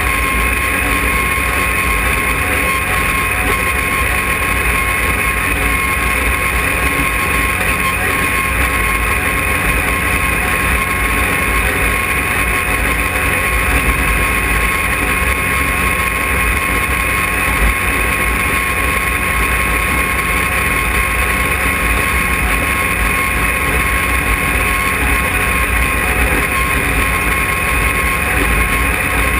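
Arctic Cat Wildcat side-by-side driving steadily at about 90 km/h on a dirt road: engine and road noise in an even drone with a low rumble and a thin steady whine, picked up by a camera mounted on the hood.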